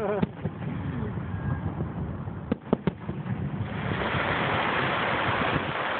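Fireworks display: a few sharp reports of bursting shells, then a steady rushing hiss of crackling from about four seconds in.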